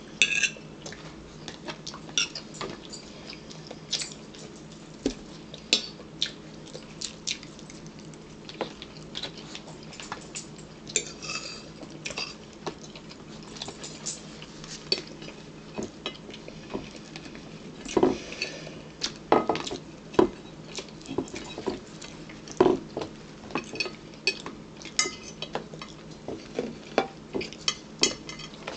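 Metal forks clinking and scraping against a plastic bowl and plates while eating, in irregular short clicks, a few louder ones past the middle.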